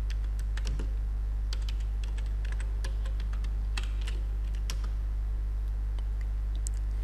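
Computer keyboard keys being typed in short, irregular clicks as a command is entered, over a steady low hum.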